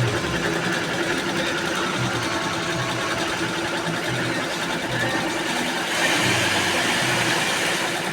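Single-head computerized embroidery machine running and stitching, a steady fast mechanical clatter that gets a little louder about six seconds in.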